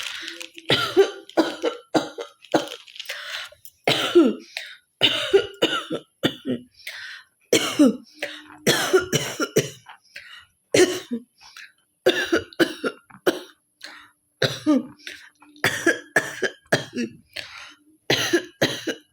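A woman coughing over and over in short bursts, several a second at times, with throat clearing between them; she has a real cough.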